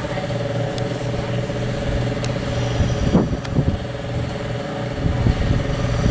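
A steady machine hum holding one pitch, with a few light clicks.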